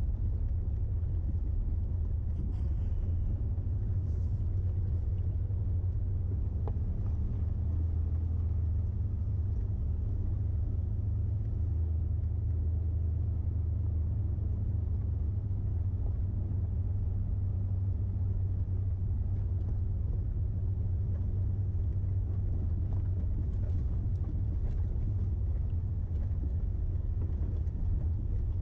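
A vehicle's engine running steadily at low revs, a continuous low rumble as it drives, with a few faint rattles near the end.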